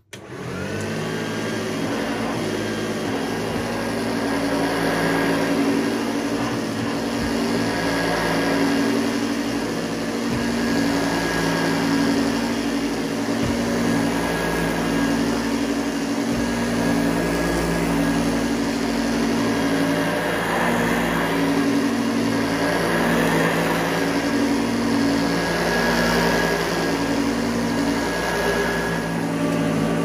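Hoover Junior Exclusive U1206 upright vacuum cleaner switched on, its motor winding up to speed within about a second, then running steadily. Its note and level shift a little as it is pushed back and forth over carpet.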